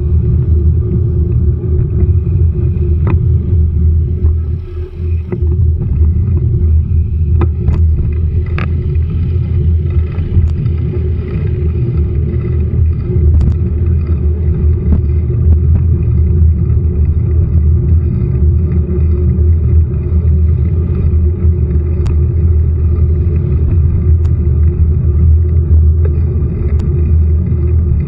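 Loud steady low rumble with a constant hum, and scattered sharp clicks over it.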